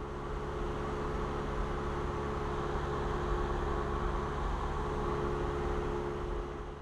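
Cessna 172R's four-cylinder Lycoming engine and propeller running steadily in flight, heard inside the cabin as a constant drone with a rushing hiss.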